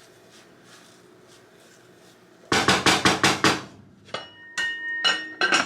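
Cookware clatter: a fast run of about seven knocks against a pot, then a few clinks, two of which leave a short metallic ring.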